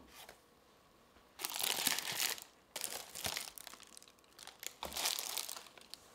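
Thin, dry material being crinkled and crumpled by hand, in three short bouts of about a second each.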